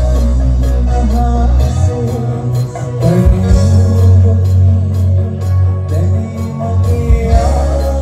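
A live band playing a Sinhala pop song through a PA: bass notes, drum kit and guitar, with a male singer's voice over them.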